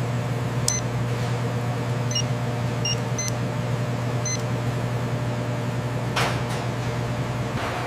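Food-processing machinery running with a steady low hum and hiss. A few short electronic beeps sound in the first half, and there are two brief swishes near the end.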